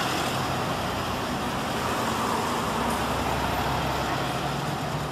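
Steady street traffic: car engines running as vehicles pass along the road, an even hum with no single event standing out.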